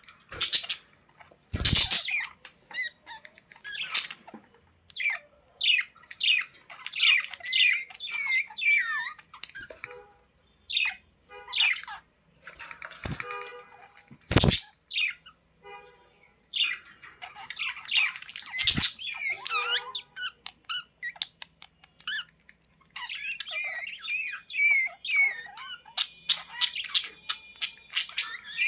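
Budgerigars chirping and warbling in a rapid run of short, squeaky calls. The calls grow denser near the end, and a few sharp knocks sound among them.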